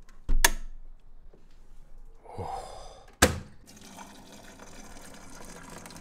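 Coffee-making: two sharp knocks of things being set down, about three seconds apart, then a steady stream of liquid filling a cup.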